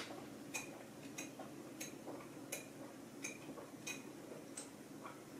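Faint, evenly spaced ticking, about three ticks every two seconds, over low room noise.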